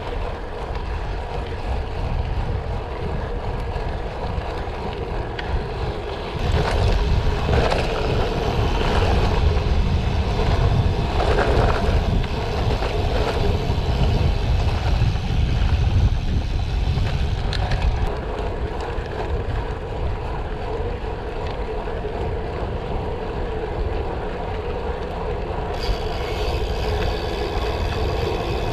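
Gravel bike on the move: tyres rumbling over a dirt or gravel surface with wind buffeting the camera microphone. It grows louder from about six seconds in until about eighteen seconds, and a high hiss joins near the end.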